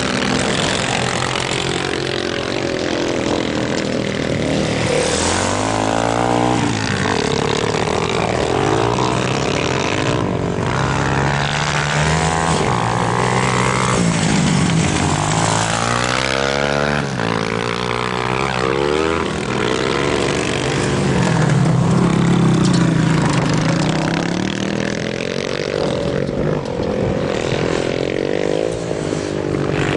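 Dirt-bike engines on a motocross track, revving up and falling away again and again as the riders accelerate, shift gears and back off. At times two engines overlap at different pitches.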